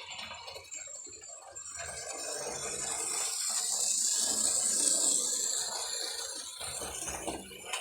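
HO scale model train running past, its wheels rattling and clicking over the track. It swells to its loudest about five seconds in, then fades.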